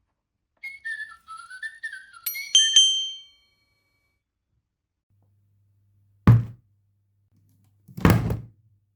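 Interactive toy bird's electronic whistle: a run of short gliding chirps, ending in a bright ringing chime at about two and a half seconds. Two dull thumps follow, one at about six seconds and one at about eight.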